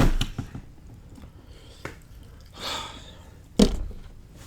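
Sounds of a person eating: a sharp thump at the start and another about three and a half seconds in, with a breathy exhale between them.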